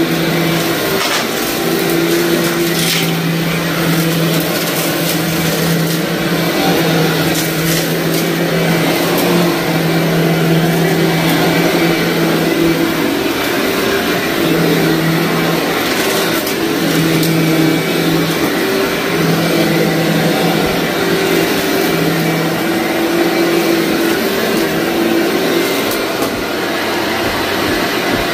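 Upright carpet vacuum running hard on a deep pass over very dirty carpet, its low motor hum wavering in and out while grit crunches and crackles up into the machine.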